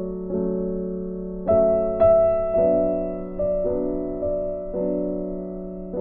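Background music of slow piano chords, a new chord struck about once a second and left to fade.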